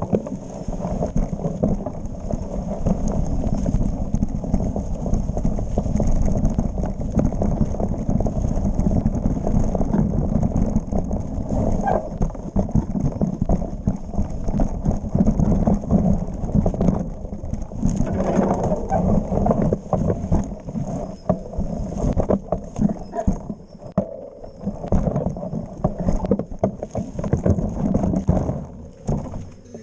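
Mountain bike rattling and knocking over a rough, root-covered trail at speed, heard through a handlebar-mounted camera: continuous tyre rumble with quick clatters from the frame and chain. It eases off near the end as the bike stops.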